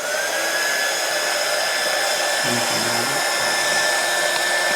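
Hot-air gun blowing steadily to shrink heat-shrink tubing over a soldered wire joint; it starts with a short rising whine as the fan spins up, then runs at an even pitch.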